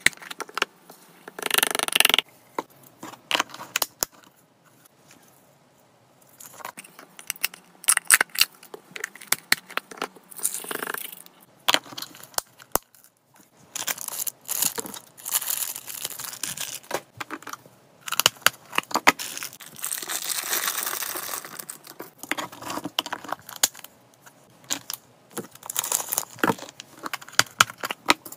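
Close-up handling of clip-lock plastic food boxes and plastic treat packaging: sharp clicks and snaps of the plastic lids and latches, with several longer stretches of crinkling and rustling.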